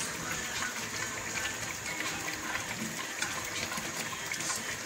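Pork kare kare sauce simmering in a pan: a steady bubbling hiss with many fine crackles.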